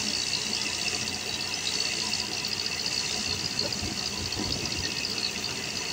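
Rice milling machine running steadily: an even mechanical drone with a high hissing whine.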